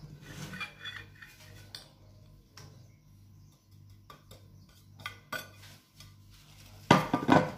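Scattered light clinks and knocks of a china plate and a metal whisk against a glass mixing bowl as flour is poured in, with a louder, ringing clatter near the end.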